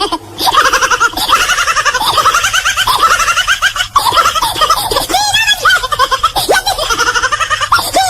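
High-pitched laughter, a rapid giggling run of short repeated ha-ha syllables, several a second, going on without a break.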